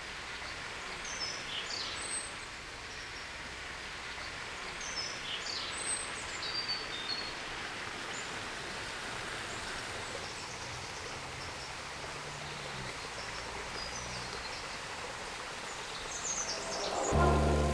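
Small birds chirping and calling in short, scattered notes over a steady background hiss. Music comes in at the very end.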